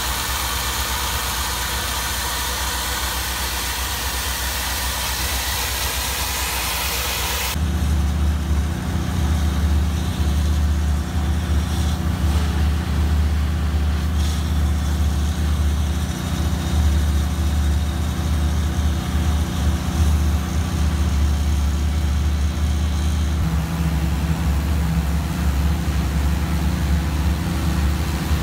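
High-pressure water jet hissing loudly as it blasts through a rusted 4-inch cast iron drain pipe, scouring out the rust scale to resurface it. About a quarter of the way in, the steady drone of the jetter's engine takes over, with the spray fainter behind it.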